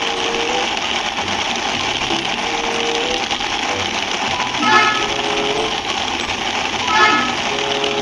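A toy tourist bus being hand-driven with a steady whirring vehicle sound, broken by two short horn honks about five and seven seconds in.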